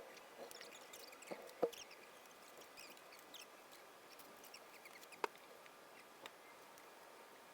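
A few light, sharp clicks and taps of hand tools and small metal parts being handled on a workbench during aircraft sheet-metal assembly, about five in all and spread unevenly, with faint short high squeaks in the first few seconds. No rivet gun is running.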